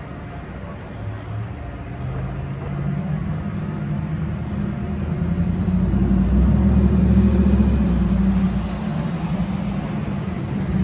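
Street traffic: a motor vehicle's low engine rumble builds, is loudest about six to eight seconds in as it passes close, then eases off.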